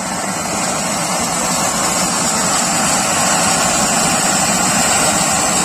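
A tubri, a clay-pot fountain firework, spraying sparks with a steady rushing hiss that grows a little louder.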